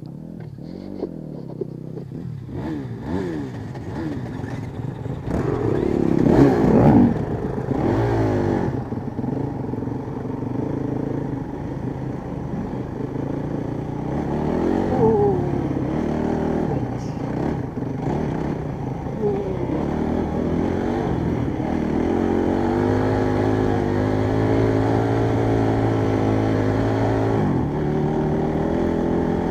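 Honda CRF trail bike's single-cylinder four-stroke engine revving up and down as the bike pulls away from a stop, loudest about six seconds in, then running at a steadier pace toward the end.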